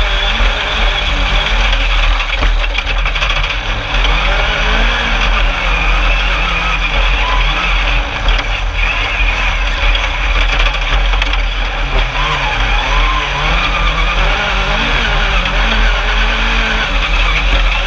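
Single-seat Class 10 off-road race buggy's engine heard from on board, its pitch rising and falling as the driver works the throttle over the dunes, over a constant noisy rumble.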